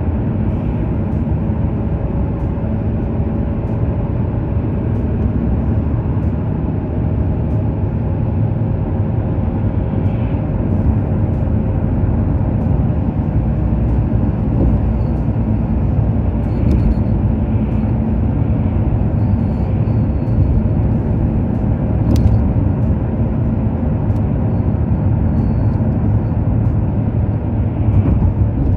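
Steady road and engine noise of a moving car heard from inside the cabin, with a faint steady hum. A single sharp click comes about three quarters of the way through.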